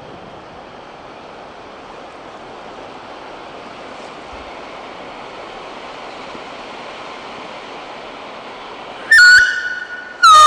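MC Fireworks Rocking fountain firework burning: a steady hiss of the gerbs spraying, then the whistle drivers on its sides go off, a short loud whistle about nine seconds in and another starting near the end, each dropping slightly in pitch.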